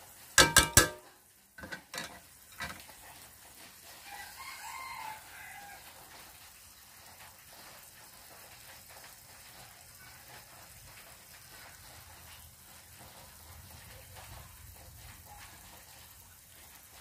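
A chicken crows loudly in one short burst about half a second in, followed by a few shorter calls over the next two seconds and fainter calls around four to five seconds in. Under it, crickets simmering in fish sauce in a pan give a faint steady sizzle.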